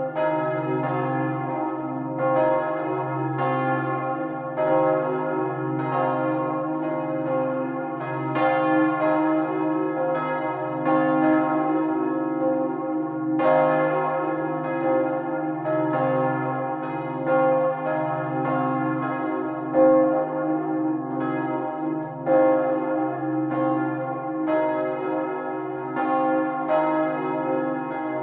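Two large bronze church bells swinging and ringing together at close range in the belfry: the 1,985 kg Paccard bell of 1885, sounding C, and the 1,140 kg Wauthy bell of 1922, sounding E-flat. Their strikes fall about one to two a second and interleave unevenly over a continuous humming ring.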